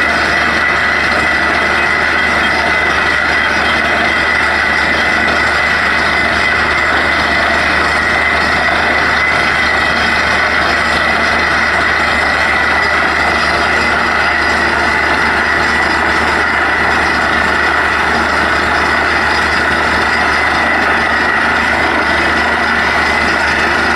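An engine-driven farm machine running steadily, a constant mechanical drone that does not change.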